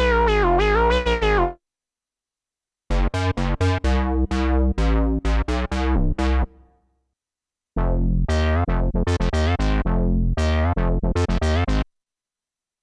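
Korg Minilogue XD synthesizer playing factory preset sounds. First a held sound with a wobbling pitch, then two runs of short plucked notes over a bass line, each cut off by a silent gap.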